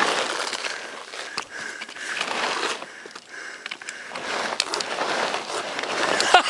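A hiker sliding and scrambling down a steep dirt trail slope: scraping and crunching that comes in uneven swells, with a few sharp ticks.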